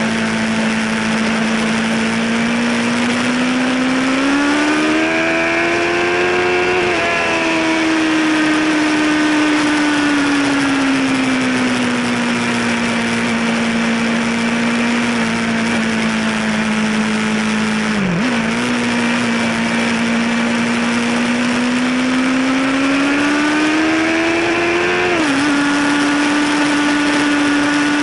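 A Yamaha sport bike's engine running under way, heard from the rider's seat over wind noise. The revs hold steady, climb and drop sharply with an upshift twice, about seven seconds in and near the end, and dip briefly around the middle.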